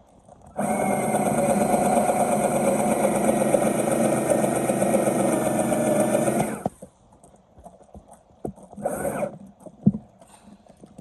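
Electric power tool motor running steadily for about six seconds, then stopping, followed by a few short bursts near the end.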